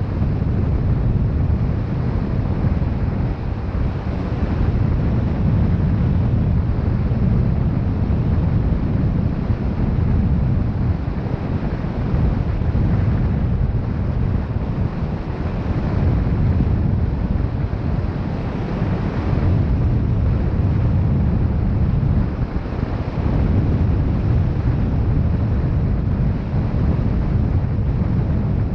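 Wind buffeting the microphone: a steady, loud low rumble that swells and eases slightly, with no other distinct sound.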